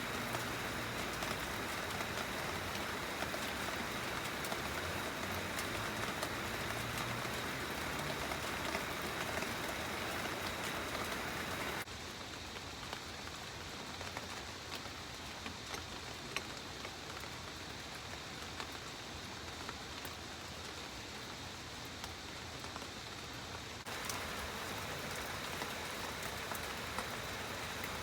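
Steady rain falling, with scattered drops tapping on a surface. About twelve seconds in it drops abruptly to a quieter, duller patter, and the fuller sound returns just as abruptly about twenty-four seconds in.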